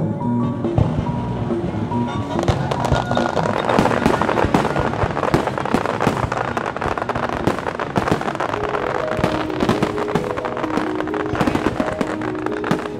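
Fireworks crackling and popping in rapid, dense succession, starting about two seconds in, over background music with held notes.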